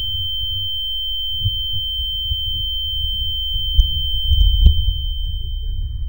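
A steady high-pitched ringing tone, a sound-design ear-ringing (tinnitus) effect for an ear deafened by a gunshot fired beside it. Beneath it runs a dull low rumble, and a few faint ticks cut through about four to five seconds in.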